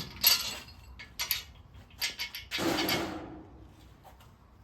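Light metallic clicks and clinks of engine bearing shells being handled and pressed into place, with a longer clatter about two and a half seconds in.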